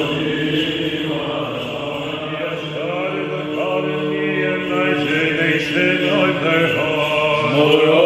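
A small group of male chanters singing Orthodox Byzantine chant unaccompanied, a low steady drone held beneath a moving melody line.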